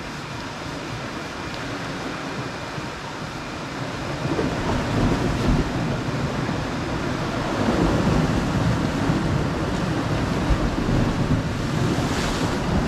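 Sea waves washing against a rocky shore, with wind buffeting the microphone; the surge swells about four seconds in and again around eight seconds.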